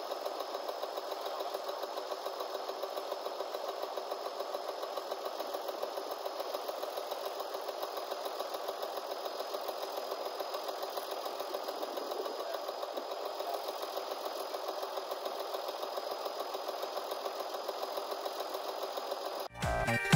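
Hesston 1880DT tractor's diesel engine idling steadily with an even, rapid clatter. It cuts off suddenly near the end as music begins.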